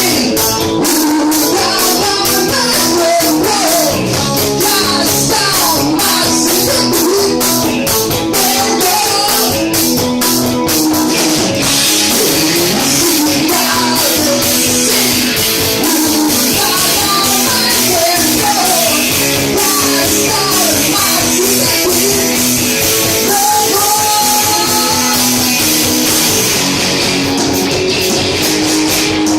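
Rock band playing live and loud, with drum kit and guitar; the drummer hits cymbals in quick strokes at first and near the end, with a steadier wash in between.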